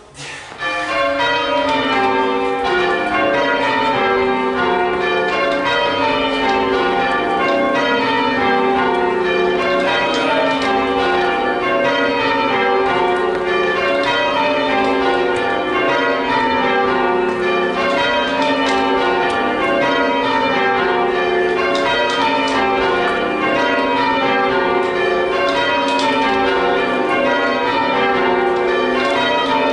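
A ring of church tower bells rung full-circle in change ringing. They strike one after another in steady rows, each row stepping down from the highest bell to the lowest, starting about half a second in.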